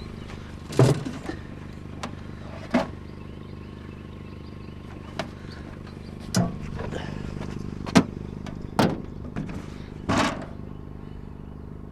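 Irregular knocks and clunks, about six of them, from objects being handled, over a steady low hum.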